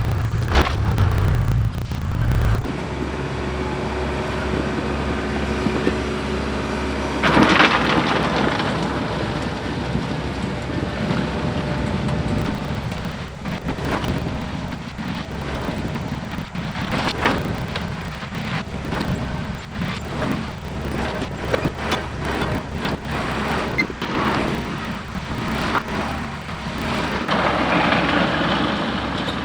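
Case 580K backhoe's diesel engine running while it works #2 limestone gravel, with stone clattering and rattling against the loader bucket. A loud rush of stone comes about seven and a half seconds in, and scattered clatters follow through the rest.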